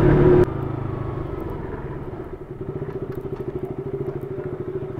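KTM RC 200's single-cylinder engine running. About half a second in it drops abruptly from riding in traffic to a quieter, steady low-speed run with an even, rapid pulse.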